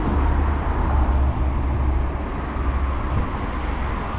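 Steady outdoor street background noise with a strong low rumble.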